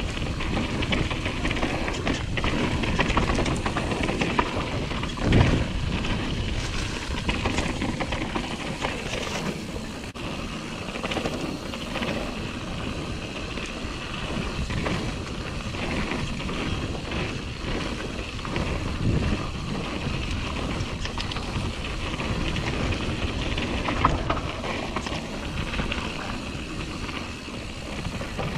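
Mountain bike being ridden fast down dirt singletrack: knobby tyres rolling and crunching over the trail, with the bike rattling and knocking over bumps and rushing wind noise on the camera. Two harder knocks stand out, one about five seconds in and one near the end.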